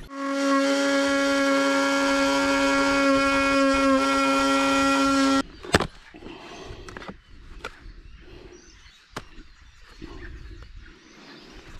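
A power tool runs with a steady high whine for about five seconds and then cuts off abruptly, trimming a plastic irrigation valve box to size. Scattered sharp clicks and knocks of the plastic box being handled follow.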